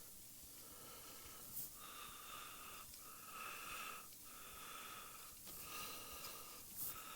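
Faint, slightly whistling breathing close to the microphone, in a run of breaths each about a second long.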